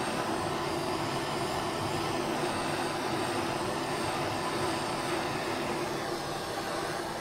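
Handheld kitchen blowtorch burning with a steady hiss, caramelizing the sugar topping on a crema catalana; the hiss eases slightly near the end.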